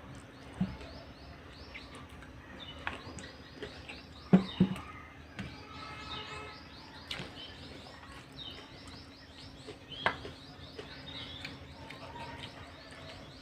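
Small birds chirping in rapid, continuous series of short falling chirps, with a few sharp clicks now and then, the loudest about four seconds in and about ten seconds in.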